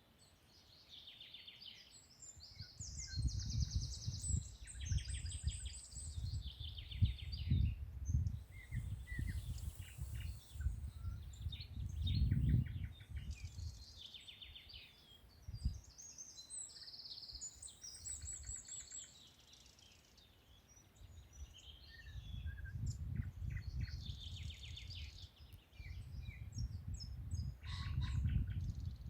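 Songbirds singing and chirping: high trills and quick runs of repeated notes, one after another. A low, uneven rumble comes and goes beneath them, louder than the birds, in the first half and again near the end.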